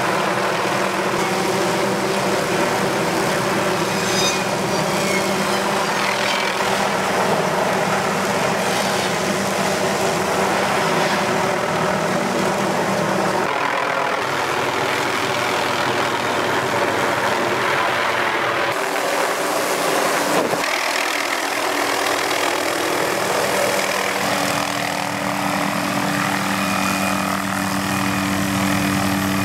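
MD 500 helicopter's main rotor and turbine engine running loud and steady as it hovers with a tree-saw boom slung below. A low hum under the noise weakens about 13 seconds in and returns stronger after about 21 seconds.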